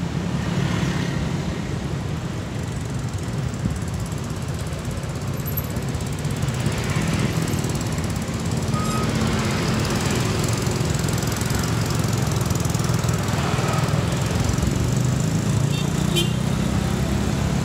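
Busy street traffic made up mostly of motor scooters, with cars mixed in: a steady drone of small engines passing, swelling somewhat louder in the second half.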